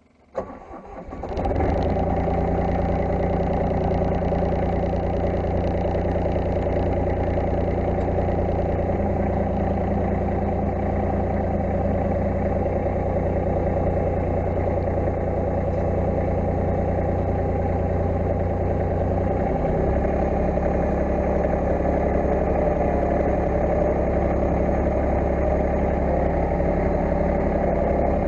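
Massey Ferguson 1720 compact tractor's diesel engine cranked and starting, catching within about a second and a half, then running steadily. The engine note shifts slightly about two-thirds of the way through.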